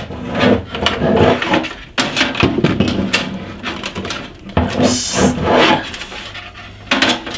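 Irregular knocks, clicks and scrapes of a PC power supply and its modular cables being handled and fitted into a computer case, with a short hissing scrape about five seconds in.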